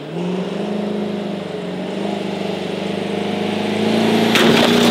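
Pickup truck engine pulling away and driving off, its pitch stepping up at the start and growing louder as it goes. A sudden louder noise comes in near the end.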